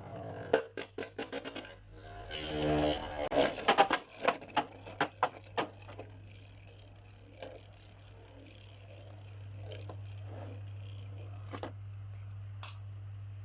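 Quick plastic clicks and rattles of a Beyblade launcher being handled and worked, bunched in the first six seconds, followed by a steady low hum.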